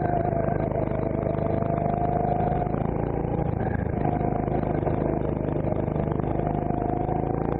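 CRG Centurion rental kart's engine running onboard through slow corners. Its pitch sags and picks up again twice as the kart slows and accelerates.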